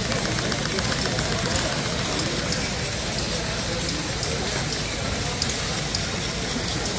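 Steady exhibition-hall din: small model engines running and clattering under a background of crowd chatter, with faint rapid ticking in the first second or so.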